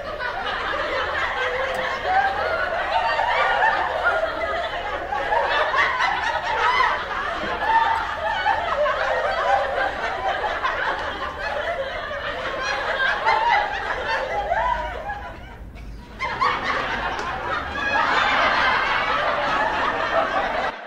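A crowd laughing, many voices overlapping. It dips briefly about three-quarters of the way through, then picks up again.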